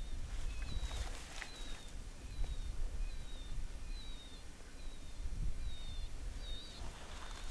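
Wind rumbling on the microphone, with faint high chirps repeating about every half second.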